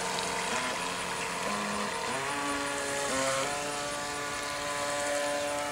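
Electric motor of a battery-powered remote-controlled toy speedboat whining as it runs out across the water. Its pitch steps up twice around the middle, then holds steady.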